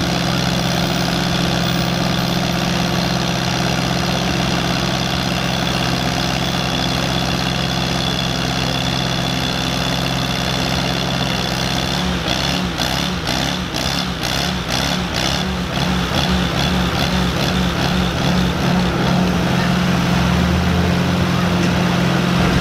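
Allis-Chalmers tractor engine working under load as it drags a weight-transfer pulling sled, a steady drone that begins to pulse with an even beat, about two a second, about halfway through.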